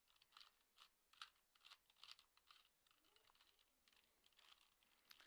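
Faint plastic clicking of a 2x2x2 Rubik's cube as its faces are turned, irregular snaps about two a second.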